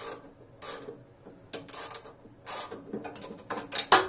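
Socket ratchet wrench clicking in short strokes as nuts are snugged down, the strokes coming faster near the end, with a loud metal clank just before it ends.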